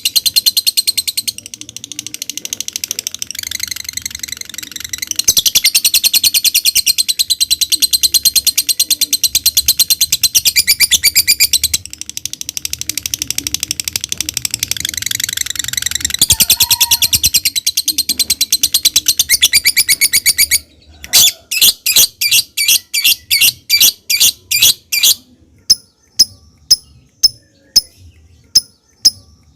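Lovebird singing its long 'ngekek' chatter: a very fast, unbroken run of high-pitched notes lasting about twenty seconds. It then breaks into separate chirps about three a second, and after that into short sharp ticks, the 'ngetik' call.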